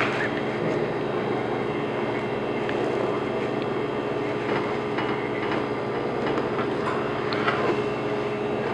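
Steady machine hum holding several low tones without change. A few faint taps from a chef's knife cutting salmon on a plastic cutting board sound over it.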